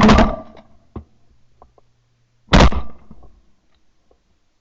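Shotgun blasts: one right at the start that dies away over a few tenths of a second, and another sharp shot about two and a half seconds in, with a light click in between.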